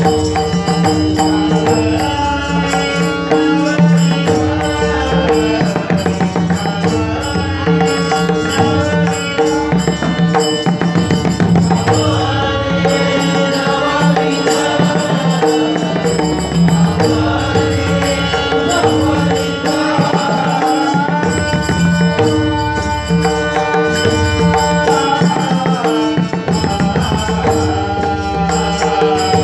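Marathi abhang, a devotional song: a singer's melodic line carried over pakhawaj drumming, with steady held notes sounding underneath.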